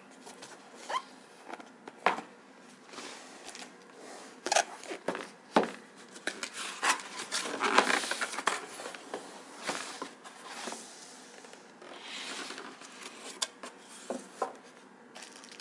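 Cardboard packaging being handled and opened, a lid slid off and box flaps lifted, with scraping and rubbing broken by irregular knocks and taps, busiest about halfway through.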